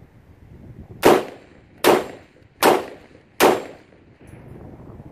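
Four suppressed shots from an AR-style 5.56 mm rifle fitted with an AAC 556-SD suppressor, fired at an even pace about three-quarters of a second apart. Each is a sharp report with a short tail.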